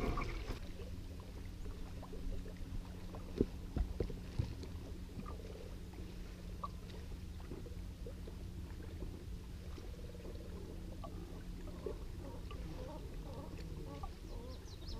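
Steady low rumble of a bass boat sitting on the water, with a faint steady hum that stops about twelve seconds in and a few sharp knocks around three to four seconds in.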